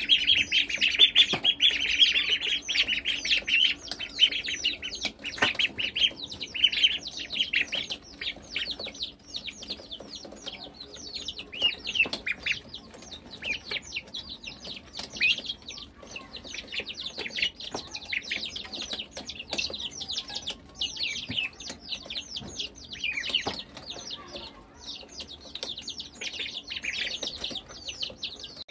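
A flock of ducklings and chicks peeping without a break, a dense stream of rapid, high, falling peeps, loudest in the first few seconds, as they crowd in to feed.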